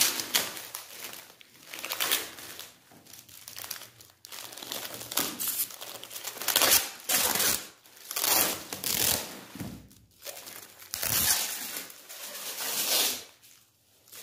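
Metallic foil tyre wrap and plastic film being torn and crinkled off, in irregular bursts of rustling and tearing with a short lull near the end.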